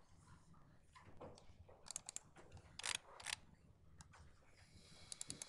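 Faint, sharp computer mouse clicks in a few quick clusters, double-clicks opening folders and a file, over low room noise.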